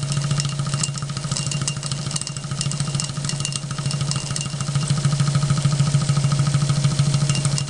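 Half-scale Boldon triple-expansion model steam engine running under steam on its first trial. It runs steadily with a fast, even pulsing beat and light, regular ticking clatter from its moving parts.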